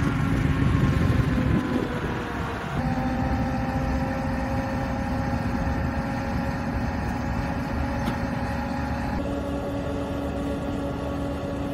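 Twin V8 petrol engines of a BM-27 Uragan rocket launcher's ZIL-135 eight-wheeled truck running. It is loudest in the first two seconds, where its pitch falls, then settles into a steady idle.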